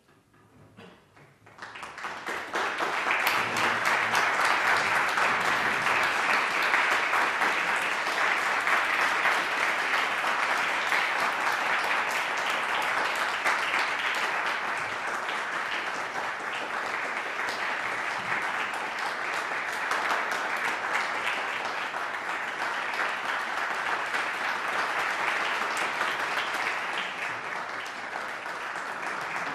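Audience applauding: a few scattered claps about a second in, swelling quickly into full, sustained applause that eases a little in the second half.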